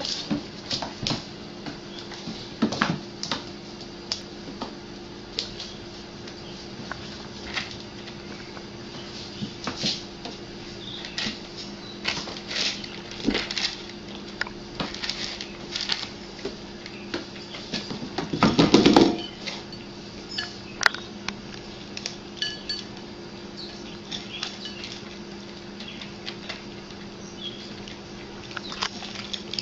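Cats eating dry kibble from food bowls on a tile floor: crunching, with repeated clicks and clinks as the bowls are nudged on the floor, over a steady low hum. A louder, longer rattle comes about two-thirds of the way through.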